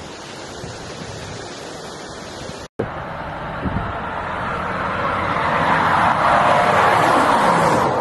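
Wind buffeting a phone microphone, then, after a sudden cut, a heavy truck approaching on a dusty road. Its engine and tyre noise grows steadily louder as it comes close, and its pitch drops as it passes near the end.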